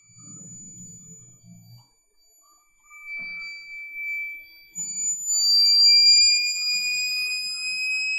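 Small electronic buzzer of a diode-sensor heat alarm circuit sounding one continuous high tone, set off by heat on the diode. The tone is faint and broken at first, then grows loud from about three seconds in and creeps slightly upward in pitch.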